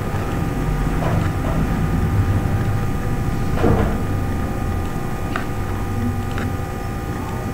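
A steady low hum of background noise, with a few soft clicks scattered through it.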